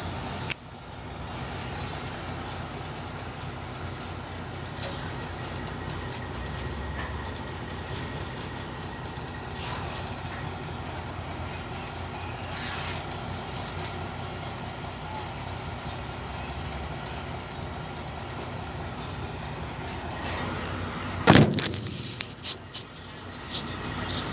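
Excavator's diesel engine running steadily, with scattered clanks and knocks and one loud bang about 21 seconds in.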